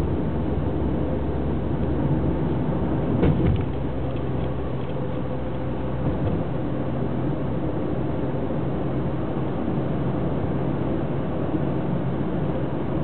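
Steady engine and tyre hum of a car driving on a paved road, heard from inside the cabin. About three seconds in there is one brief thump, as the tyres cross the joint at the end of a concrete bridge.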